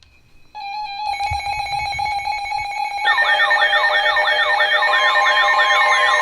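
Electronic alarm of an emergency weather alert receiver going off ahead of an alert broadcast. A steady tone starts about half a second in and soon pulses rapidly. About three seconds in a repeating siren-like warble joins it, and the sound keeps getting louder.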